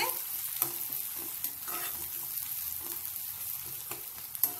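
Thinly sliced onions frying in hot oil with a steady sizzle while a metal spatula stirs them, scraping and clicking against the pan a few times, the sharpest click near the end. The onions are being fried continuously stirred until reddish-brown.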